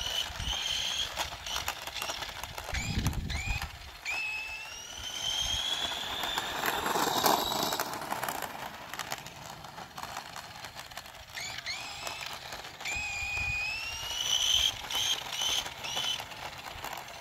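Razor Power Core E100 electric scooter's hub motor whining as it accelerates, its pitch rising steadily. The whine comes twice, each time after a few short rising chirps. There is a louder rush of wheel and road noise about seven seconds in as the scooter passes close by.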